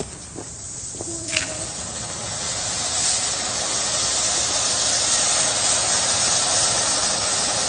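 Firework fountain lit and spraying: after a short crackle about a second and a half in, a dense hiss swells up and holds loud and steady.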